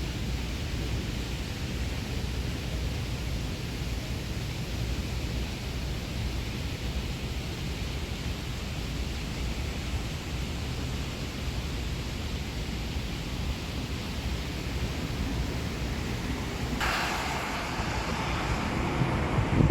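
Strong wind buffeting the microphone: a steady low rumbling rush, with a brighter hissing gust coming in about 17 seconds in.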